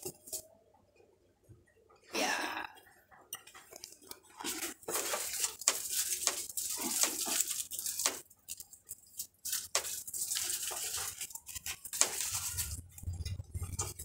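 Crinkling and rustling of thin plastic with small sharp clicks, in irregular spells, as cups of packaged drinking water are handled.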